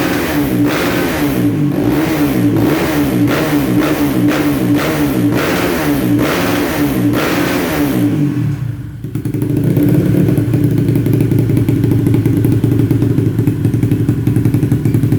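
Bored-up Kawasaki KLX single-cylinder four-stroke engine through a GP7 SRP aftermarket exhaust, revved in quick blips about twice a second. After a brief dip about nine seconds in, it is held at steady high revs.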